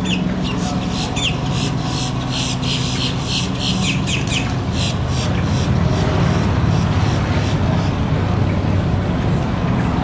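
Boat-tailed grackle calling: a rapid series of harsh clicking notes, about three or four a second, with a few short falling squeaks, which stops about halfway through. A steady low hum runs underneath.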